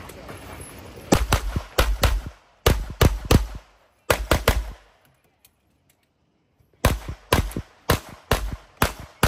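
Handgun shots fired in quick pairs while shooting an IDPA stage. There are about a dozen sharp reports, then a pause of about two seconds, then about eight more near the end.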